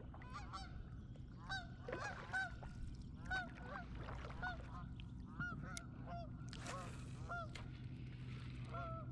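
Geese honking: many short calls, roughly two a second, overlapping irregularly, over a steady low hum.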